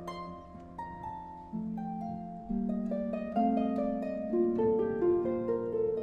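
Background music: a slow melody of plucked string notes, each struck sharply and left to fade.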